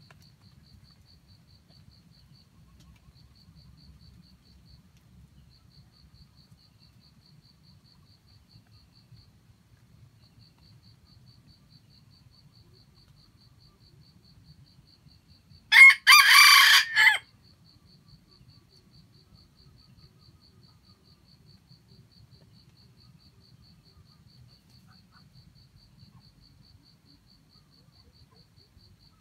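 Jungle-fowl rooster crowing once, a single crow of about a second and a half, roughly halfway through, with another crow starting just at the end.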